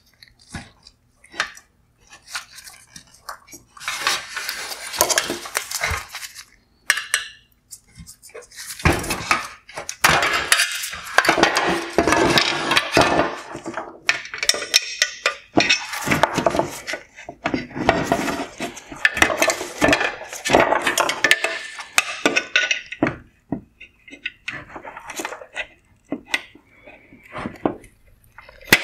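Metal LED heat sinks and chrome-plated reflector pieces from a headlight knocking, clattering and clinking together as they are handled and pulled apart on a workbench. The sound comes in irregular bursts, busiest in the middle.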